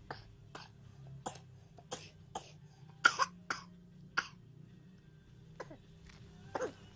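A young child coughing: a run of about a dozen short coughs, the loudest pair a little past halfway.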